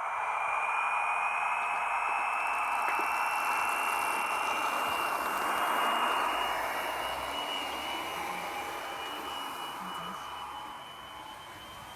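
Recorded Paxman Valenta engine sound from two Hornby TTS sound decoders in a model Intercity 125's power cars, played through the model's small speakers: a steady high whistle over a rushing noise, the whistle slowly creeping up in pitch. It grows a little louder toward the middle, then fades in the second half.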